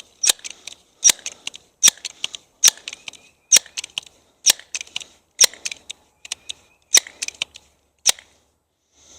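Sharp clicks about every 0.8 s, each followed by a few fainter ticks, from the pellet pistol's adjustable rear sight being worked by hand.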